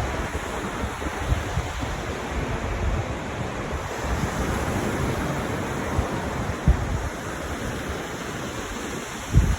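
Wind buffeting the microphone in low, rumbling gusts over a steady wash of sea and surf, with one stronger gust near the end.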